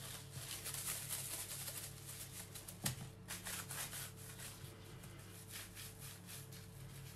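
Plastic cling film crinkling and rubbing on a countertop as a log of garlic butter is rolled up in it and its ends twisted, with one sharper click about three seconds in.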